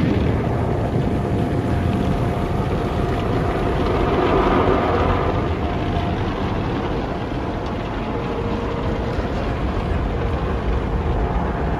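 Automatic car wash heard from inside the car: a steady rush of water spray and spinning brushes washing over the windshield and body, swelling slightly about halfway through, with a faint steady tone from the wash machinery underneath.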